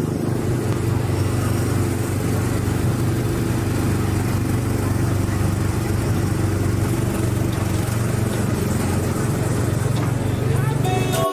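A machine running with a steady low hum under an even rush of noise, cutting off abruptly near the end.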